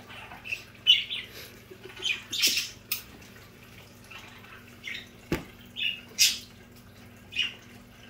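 Pet budgerigars giving short scattered chirps and squawks, around ten spread through the span, with one sharp knock about five seconds in. A faint steady low hum runs underneath.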